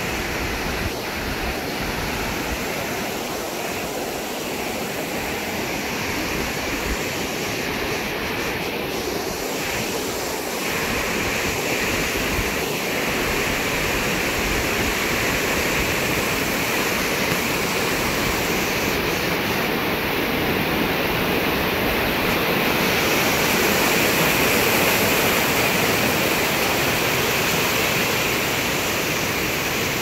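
Fast floodwater of a mountain stream swollen by typhoon rain, rushing steadily.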